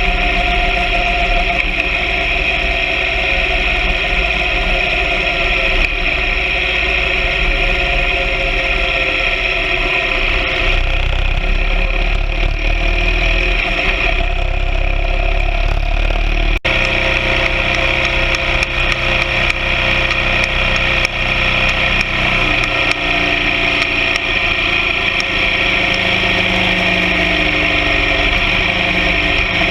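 BMW R 1200 GS Adventure sidecar rig's engine running steadily on the move, with road and wind noise. The sound changes abruptly about sixteen seconds in, then carries on much the same.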